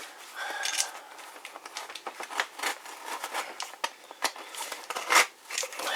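Hands handling a cardboard parcel and the capacitors packed in it: rustling with many light clicks and taps, and a sharper knock about five seconds in.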